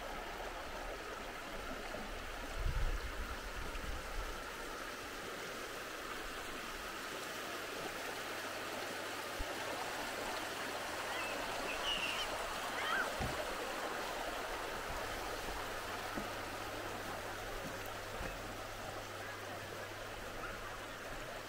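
Flowing stream: a steady rush of running water. A low thump comes about three seconds in, and a few faint high chirps are heard near the middle.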